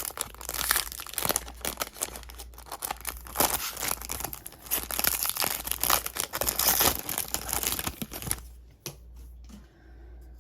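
Wrapper of a 2022 Topps Series 1 baseball card pack being torn open and crinkled. It makes a dense, uneven crackle that stops about two seconds before the end, leaving only a few soft ticks.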